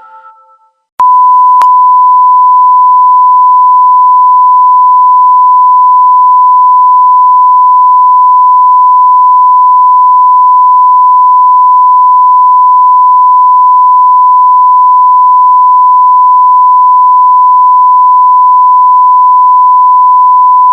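A loud, steady electronic beep at one unchanging pitch, a pure tone that starts about a second in with a click and holds unbroken for nearly twenty seconds.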